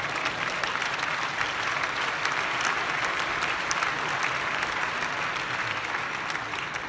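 Large audience applauding: dense, steady clapping that begins to die down near the end.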